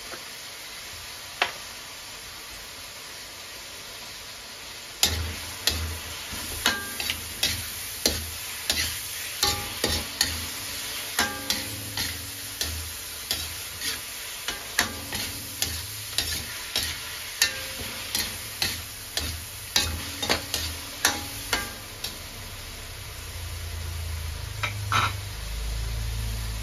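Metal spatula stirring and scraping aromatics in a large metal wok over a steady sizzle of frying. From about five seconds in, the spatula knocks against the pan about once or twice a second, stopping a few seconds before the end, where the sizzle grows a little louder.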